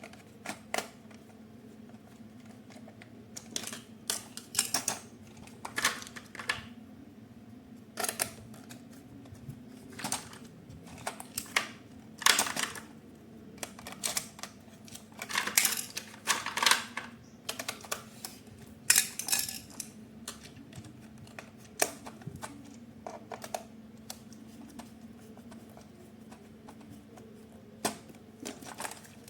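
Hands handling hard plastic toy parts and packaging: irregular clicks, taps and short rustling scrapes, over a faint steady hum.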